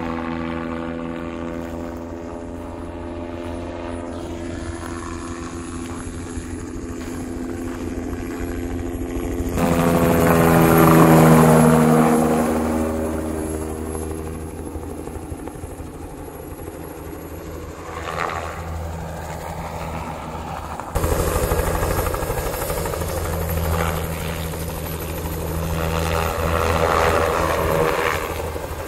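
Light helicopter's rotor beating steadily as it flies low over the field. About ten to twelve seconds in it passes close, loudest then, and its pitch falls as it goes by.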